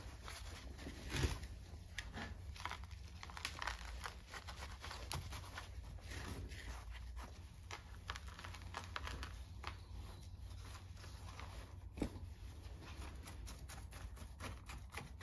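Gritty bonsai soil mix with crushed brick being pushed and worked in by gloved hands around the roots in a plastic pot: faint, irregular crunching and scratching of grit, with one sharper click about twelve seconds in.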